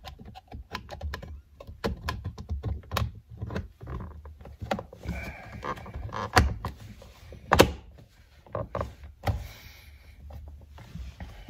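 Plastic switch plate being handled and pressed into a 1986 Nissan 300ZX's plastic centre console: irregular clicks, taps and knocks of plastic trim, the loudest knock about two-thirds of the way through.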